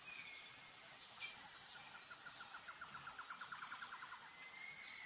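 Faint nature ambience: a steady high insect drone with a few short bird chirps, and a rapid trill of about ten notes a second in the middle.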